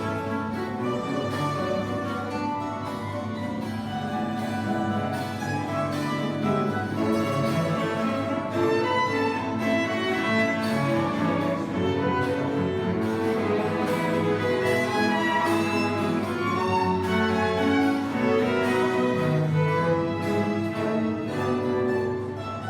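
Live string ensemble music: violin and cello bowing held and moving melodic lines together.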